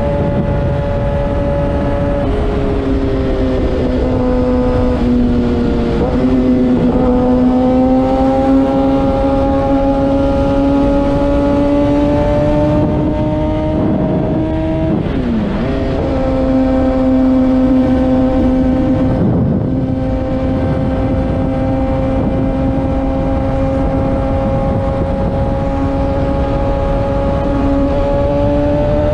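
Kawasaki ZX-6R 636's inline-four engine running at a steady high pitch while riding, the pitch drifting slowly and dipping briefly and recovering twice, about six and fifteen seconds in. Wind rumble sits underneath.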